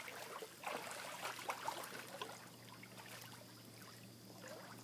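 Faint splashing and lapping of lake water as a small dog swims away from the shore, the little splashes thinning out after about two seconds and leaving only quiet lapping.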